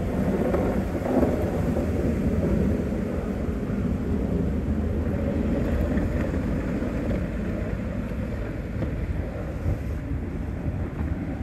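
Low, steady rumble of a snowplow pickup truck's engine as it drives and plows, mixed with wind rumbling on the microphone; a little louder in the first few seconds.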